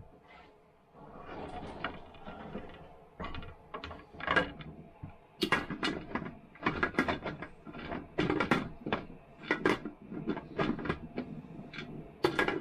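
Older Presto pressure canner's metal lid scraping and clanking against the pot rim as it is twisted and worked to lock it on, catching instead of seating. Softer scraping at first, then many sharp metal clanks from about five seconds in.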